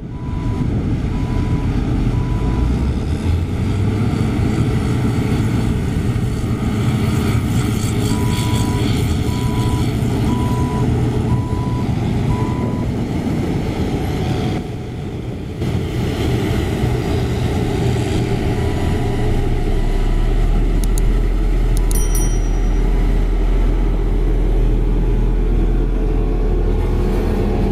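Diesel engine of a Hamm 3516 single-drum road roller running steadily, with a reversing alarm beeping in several stretches. A deeper low rumble comes in about two-thirds of the way through.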